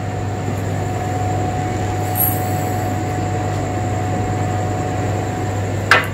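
A steady low hum with hiss, with a brief faint high rustle about two seconds in.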